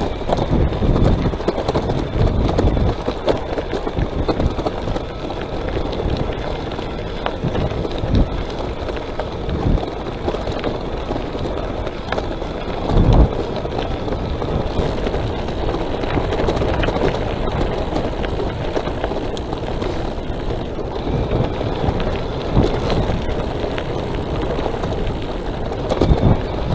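Wind buffeting the microphone of a moving electric bicycle: a steady, gusty low noise, with one louder knock about halfway through.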